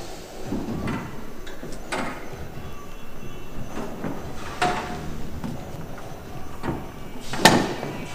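School chairs with metal frames and wooden seats knocking and clattering as children lift, swing and set them down while dancing. There are a handful of separate sharp knocks over a steady shuffle, and the loudest comes near the end.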